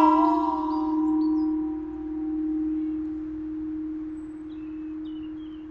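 Tall metal chime tube of a chime sculpture struck once, ringing with a low hum that swells and fades slowly as it decays, while its higher overtones die away within a couple of seconds.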